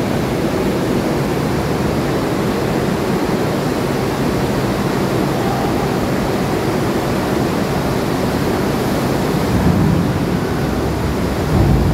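Steady rushing of churned water mixed with the running engine of an amphibious assault vehicle (AAV) as it swims out of a ship's flooded well deck into the sea. The engine note comes through more strongly near the end.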